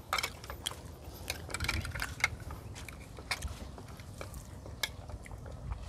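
Chopsticks and a fork clicking and scraping against ceramic plates and bowls as food is picked up from shared dishes, a scatter of light, irregular clicks with two sharper ones around two seconds in and near the end.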